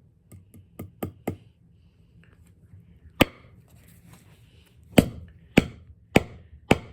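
Hammer driving a small flanged screw into a board: three light taps about a second in, then five sharp blows, the last four in quicker succession.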